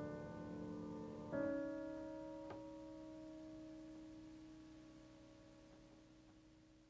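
Acoustic piano playing the last chord of a jazz trio piece: the chord is struck about a second in and left to ring, dying away slowly.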